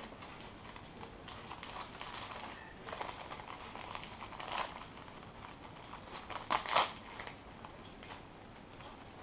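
Small plastic clicks and scrapes of a part being pried out of an opened Samsung Galaxy Note N7000 phone, with a sharper pair of snaps a little past halfway.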